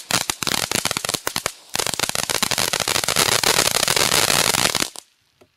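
Ground fountain firework burning with a dense crackle of tiny pops over a spraying hiss. About a second in it thins to scattered pops and briefly drops away, then surges back dense and loud before cutting off suddenly near the end as the fountain burns out.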